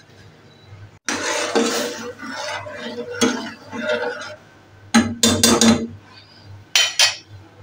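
Metal spoon stirring boiling milk in a stainless steel pot, scraping round the pot and clinking against its sides and rim, with several sharp clinks in the second half. A faint steady low hum runs underneath.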